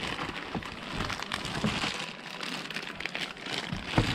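Clear plastic bag crinkling and crackling as it is handled, with a sharper click about four seconds in.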